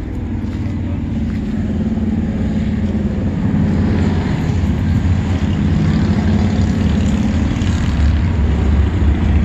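Engine of a nearby road vehicle running with a low steady drone, growing gradually louder.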